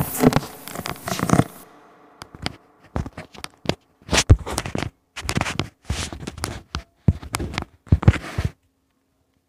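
Handling noise: irregular clicks, knocks and scrapes, with a guitar's ringing and hiss fading out in the first second or so. It stops suddenly about a second before the end, leaving only a faint hum.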